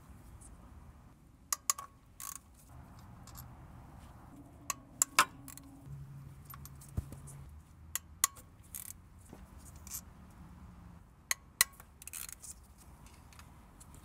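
Scattered metallic clicks and clinks, about a dozen at irregular intervals, of a ratchet, socket extension and steel bolts as the 10 mm oil pan bolts are loosened and taken out.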